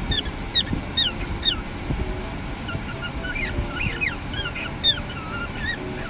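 Cockatiel chirping: a run of short, falling chirps, four in quick succession in the first second and a half, then more calls in the second half, over a steady low rumble.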